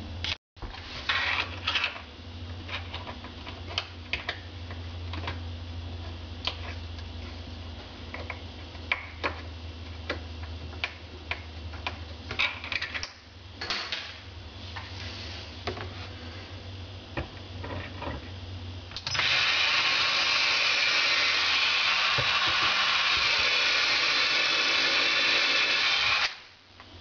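Scattered knocks and clicks, then about two-thirds of the way through a Makita 12-volt cordless drill runs steadily for about seven seconds, driving a screw up through an L bracket into the benchtop, and stops suddenly.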